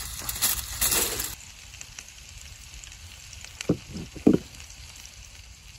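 Burgers sizzling on a charcoal grill, with aluminium foil crinkling loudly for the first second and a half as it is laid over them as a makeshift lid. After that the sizzle goes on faintly, with a few short knocks about four seconds in.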